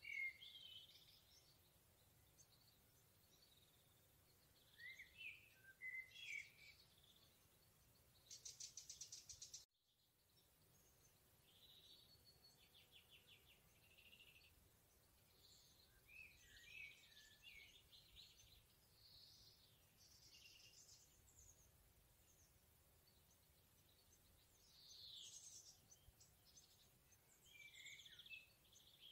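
Several songbirds singing in a forest, faint: varied short chirps and whistled phrases with quick rapid trills, overlapping at times. The sound drops out briefly about ten seconds in.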